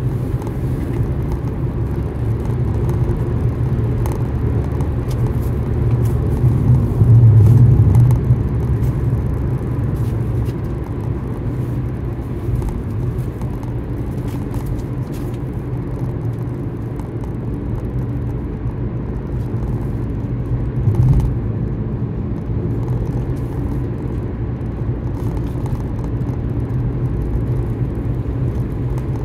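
Car driving at steady speed on a paved road, heard from inside the cabin: a steady low rumble of tyres and engine. It swells louder for about a second a quarter of the way through, and there is a short thump about two-thirds of the way through.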